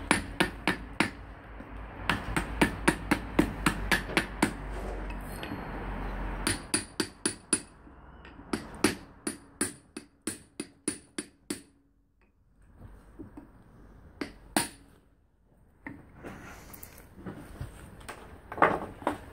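Hammer blows on a steel drift, driving the hub and bearing out of a rusty Opel Corsa brake drum clamped in a vise. Sharp metallic strikes come in quick runs with short pauses between, then fewer, single blows near the end.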